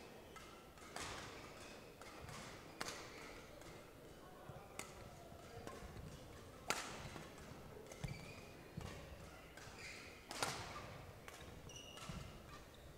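Badminton rackets striking a shuttlecock in a rally: a string of sharp cracks, irregularly spaced one to two seconds apart, the loudest about two-thirds of the way through, each echoing briefly in the hall.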